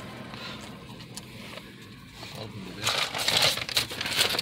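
Faint hum of passing traffic coming in through an open car window. About three seconds in, loud rustling and crackling of the phone being handled close to the microphone takes over.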